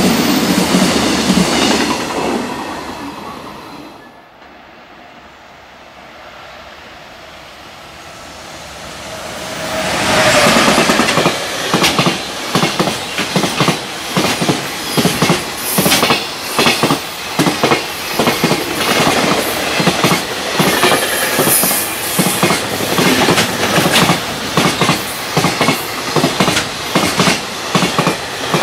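A freight train passing at speed. The rumble fades over the first few seconds, then a train draws close about ten seconds in, and its wagons' wheels clatter over the rail joints in a rapid, even rhythm of clacks.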